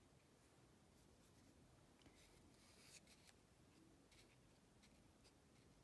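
Near silence, with faint scratchy strokes and light ticks of a watercolour brush on paper, loudest about two to three seconds in.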